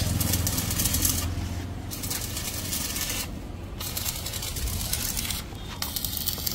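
Electric arc welding on the broken steel stand of a disc harrow: the arc crackles and hisses in runs of one to two seconds, stopping briefly three times between runs.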